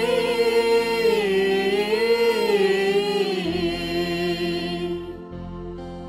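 Small choir singing a slow Syriac funeral chant in the East Syriac tradition, voices holding and gently bending a long phrase that fades away near the end.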